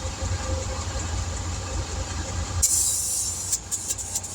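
A steady low machine drone underneath. About two-thirds of the way in comes a sudden loud rush of compressed air from a bead blaster fired at a tire to seat its bead on the rim, then several short sputtering bursts of air.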